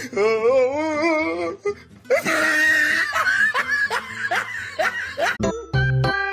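Human laughter, first a high wavering laugh and then a burst of giggling, followed a little over five seconds in by background music with a steady beat.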